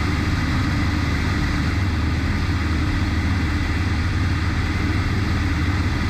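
Piper Archer II's four-cylinder Lycoming O-360 engine and propeller running steadily in cruise descent: an even, unbroken low drone heard from inside the cabin.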